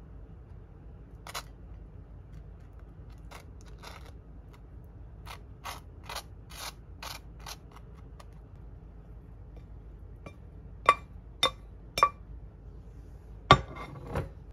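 Table knife spreading strawberry jam on toasted bread, scraping across the toast in a series of short strokes. Near the end come several sharp knocks and clinks as scrambled eggs are tipped from a pan onto the toast, the loudest about a second before the end.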